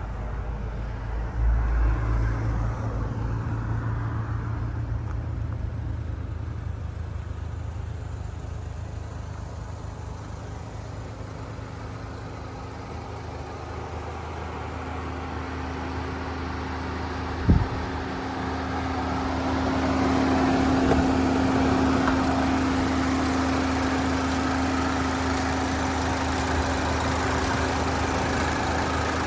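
The 2009 Chevy HHR SS's turbocharged 2.0-litre Ecotec four-cylinder engine idling steadily. It grows louder, with a steady hum, in the second half, and there is one sharp thump about halfway through.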